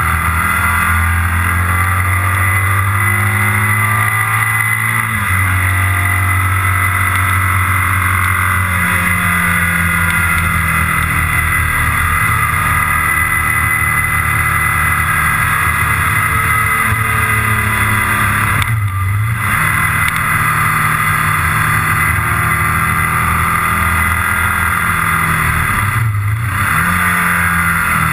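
Motorcycle engine running at road speed under heavy wind and road noise on the onboard microphone, its note shifting as the throttle changes. Twice in the second half the engine briefly drops off and picks up again, as when the throttle is eased for a shift or a bend.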